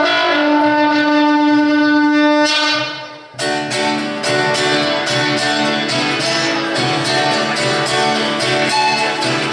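Live acoustic folk music: a horn holds one long note over the guitar, ending about two and a half seconds in. After a short dip, acoustic guitar strumming continues with a large rope-tensioned bass drum beaten with sticks in a steady rhythm.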